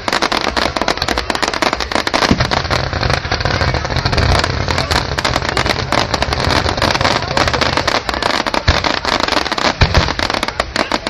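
Fireworks display: a dense, continuous barrage of rapid cracks and bangs over a low rumble, with no let-up.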